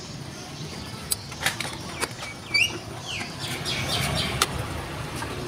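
Sharp plastic clicks and knocks as circuit boards and wire connectors are handled and pulled inside the opened chassis of a CD and cassette boombox. A few short high chirps come in about halfway through.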